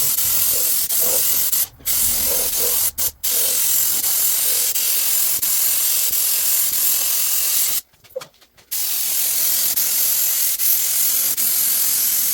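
Paint spray gun hissing steadily as paint is sprayed, stopping briefly a few times: a short break about two seconds in, two quick ones around three seconds, and a pause of about a second near the middle.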